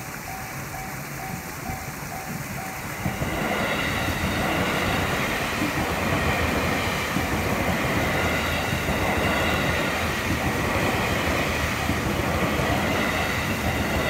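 Japanese railway level-crossing warning bell ringing in a steady rapid rhythm. About three seconds in, a JR electric express train arrives and runs through the crossing, its wheels on the rails and its running gear loud, still passing at the end.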